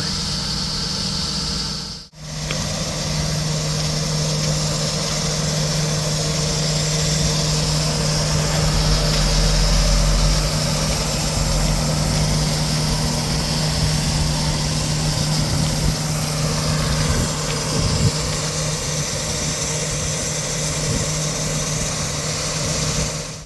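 Heavy machinery engine running steadily with a constant low hum; the sound cuts out for a moment about two seconds in, then carries on.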